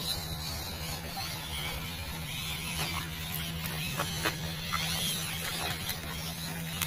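The small electric motor and gearbox of an MN99S RC crawler hum steadily as it drives through shallow, fast-flowing river water, over the steady rush of the water. There are a few light clicks in the middle.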